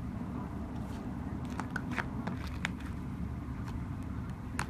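Fingers pressing and kneading a thick slime, giving a scatter of small clicks and pops, bunched in the middle with one more near the end. A steady low rumble runs underneath.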